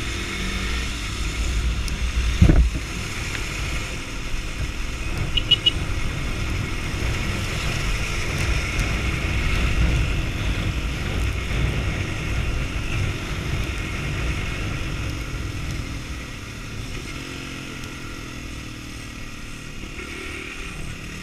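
Sundown STX 200 Motard's single-cylinder engine running while riding, under steady wind and road noise, with a sharp thump about 2.5 seconds in. The engine and road noise grow quieter in the last few seconds.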